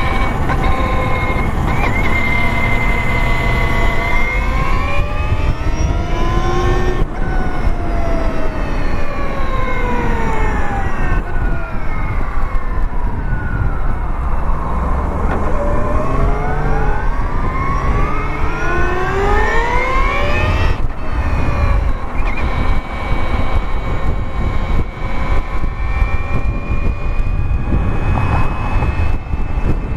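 Electric drive motor of a Victory Empulse TT motorcycle whining under way, its pitch rising as it speeds up and falling as it slows, twice over, then holding steady near the end. Wind rush on the microphone runs underneath.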